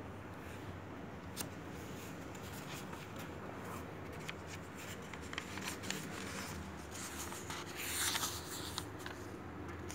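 Pages of a paper book being turned and handled: a soft paper rustle with scattered light clicks, louder for a moment about eight seconds in.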